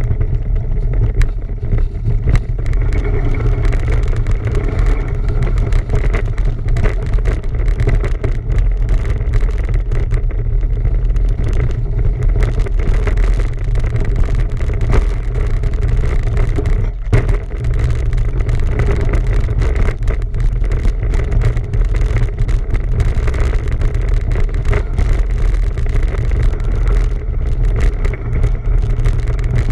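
Steady rush of wind and rolling noise heard while riding a bicycle: a heavy low rumble with a hiss over it, unbroken throughout.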